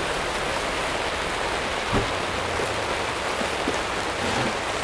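Heavy rain falling steadily, a constant hiss of rain with a light knock about two seconds in.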